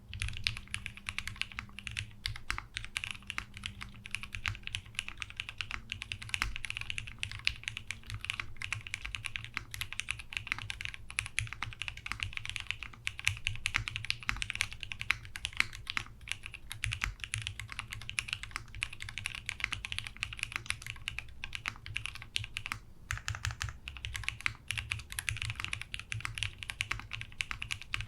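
Fast continuous typing on a custom mechanical keyboard with lubed linear Cherry MX Black Hyperglide switches on a polycarbonate plate and Cherry G80 keycaps: a dense run of soft, deep key strokes that briefly pauses near the end.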